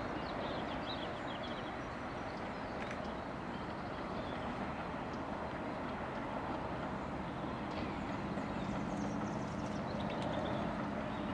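Distant diesel-hauled train running steadily as it moves away, with birds chirping over it.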